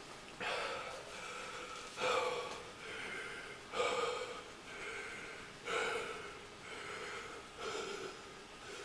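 A man gasping and breathing hard through an open mouth, a sharp breath about every two seconds, five in all, as his mouth burns from an extreme chilli-extract hot sauce.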